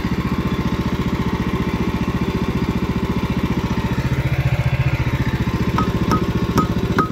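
Small gasoline engine of a portable band sawmill running steadily, swelling briefly about four seconds in. Near the end a regular clicking starts, about two clicks a second.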